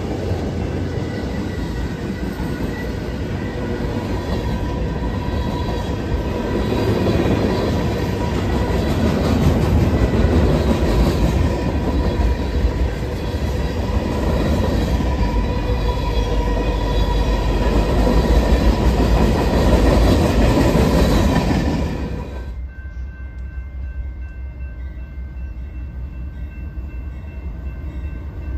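A train passing on the rails: a loud, steady rumble of wheels and cars with a few faint steady squealing tones. About three-quarters of the way through it drops suddenly to a quieter rumble.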